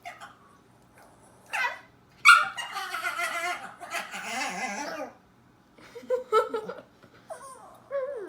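Dog in a cage yelping and whining: a few short yelps, then a long wavering whine from about two and a half to five seconds in, then more yips and a falling whine near the end.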